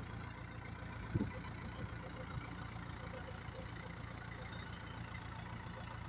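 Terex TX760B backhoe loader's diesel engine running steadily at low revs as the machine moves and turns, with one brief low thump about a second in.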